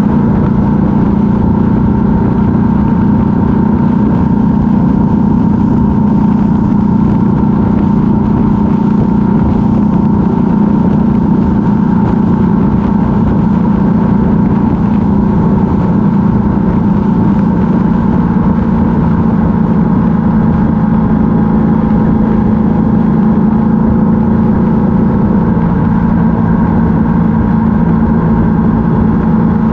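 Yamaha MT-07 motorcycle's parallel-twin engine running steadily at cruising speed, heard from on the bike, a constant engine drone with no gear changes or revving.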